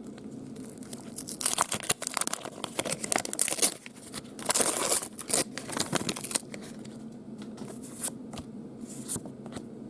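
A trading card pack being torn open, its wrapper crinkling and tearing in a run of crackles that dies down about six seconds in, followed by a few light ticks.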